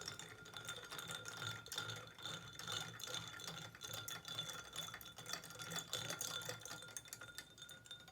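Ice cubes rattling and clinking against the inside of a glass as a drink is stirred with a straw: a quick, continuous clatter that stops near the end.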